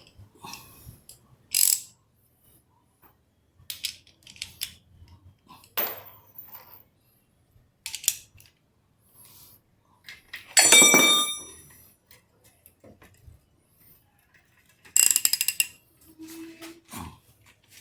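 Metal hand tools and motorcycle swingarm hardware clinking and knocking in scattered, irregular strikes, with two louder ringing metallic clanks, one about eleven seconds in and one about fifteen seconds in.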